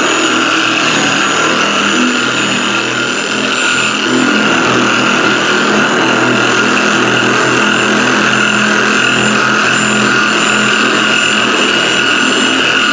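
Bauer 6-inch electric dual-action polisher/sander running steadily with a high whine, its orbiting sanding disc rubbing across a metal car body panel.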